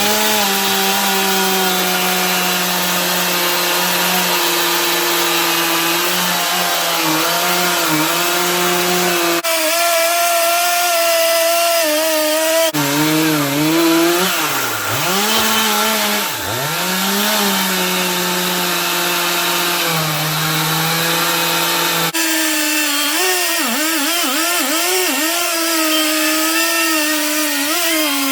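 Gas chainsaw running at full throttle and cutting through logs, its engine pitch sagging and recovering again and again as the chain bites into the wood.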